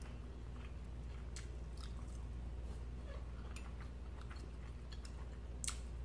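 Close-miked chewing of soft food (baked fish, potato and broccoli), with scattered small clicks of mouths and forks over a steady low hum; the sharpest click comes near the end.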